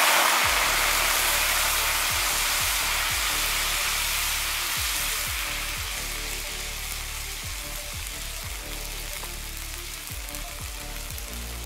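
Hot cooking oil in a karahi sizzling and spattering hard as Coca-Cola boils off in it, the hiss slowly dying down. Faint background music with a low bass runs underneath.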